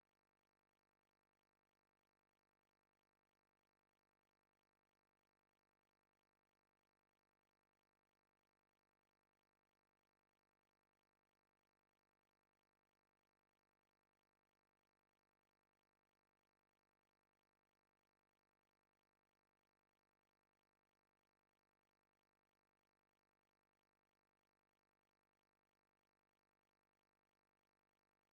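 Near silence: only a faint, steady noise floor with no distinct sound.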